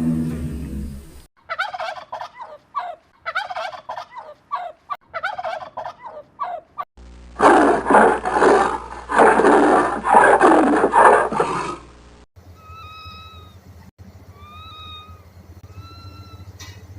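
A run of separate animal-call clips. After a low falling call in the first second comes about five seconds of rapid, rattling gobbling calls typical of a turkey. Then a loud, dense calling lasts about five seconds, and near the end there are faint short chirps over a low hum.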